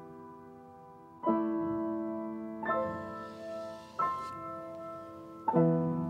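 Soft piano music: slow chords struck four times, each left to ring and fade before the next.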